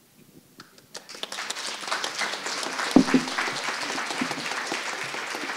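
Audience applauding, the clapping starting about a second in and running on steadily, with one louder knock about three seconds in.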